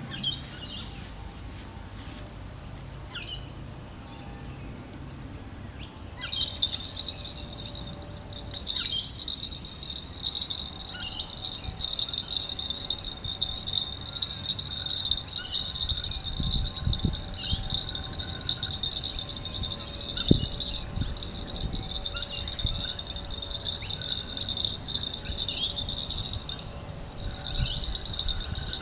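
An insect's steady high trill that starts about six seconds in, with scattered short bird chirps and occasional wind buffeting on the microphone.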